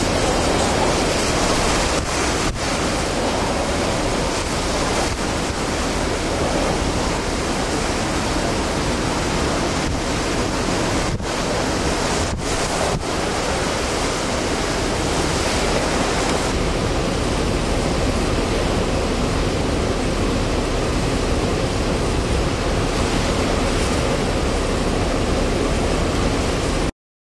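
Hurricane-force wind blasting across the camera microphone: a loud, steady rushing roar, with a few momentary dropouts partway through.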